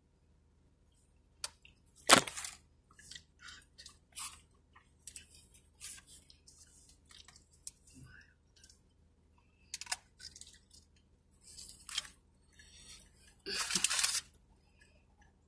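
Close-up eating sounds: scattered mouth clicks and chewing noises from a person eating chips. There is a sharp click about two seconds in and a longer rustle near the end.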